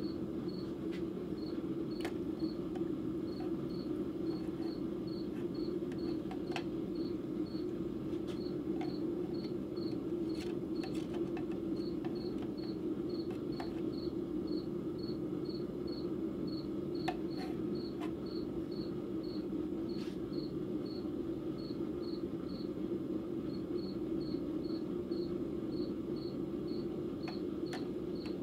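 A cricket chirping steadily, about two to three short high chirps a second, over a steady low hum, with a few faint clicks.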